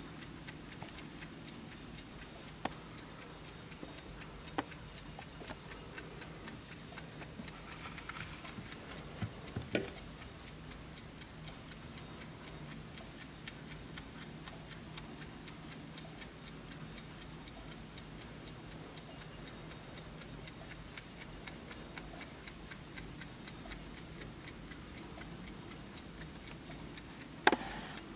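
Vintage Juba Schatz mechanical mantel clock ticking steadily, with a few louder single knocks, the loudest near the end.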